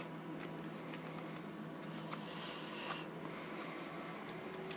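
Faint handling sounds of a phone being worked on by hand: light clicks and rubs of plastic parts and flex ribbon cables as they are fed through the frame, with a sharper click near the end, over a steady low hum.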